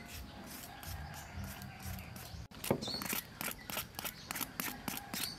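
Knife scraping the skin off a snake gourd in quick, repeated strokes, about four a second in the second half.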